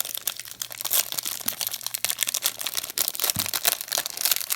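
Crinkling and tearing of a trading card pack's wrapper as it is torn open and handled: a dense, irregular crackle.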